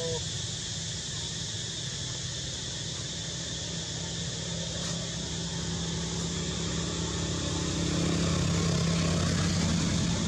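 Steady low hum of a distant engine, growing a little louder about eight seconds in, over a constant hiss of outdoor background.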